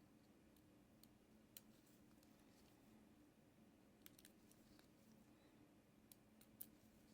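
Near silence with a low steady hum, broken by a handful of faint sharp clicks of small tools on a Casio G-Shock watch module as it is taken apart, the sharpest near the end.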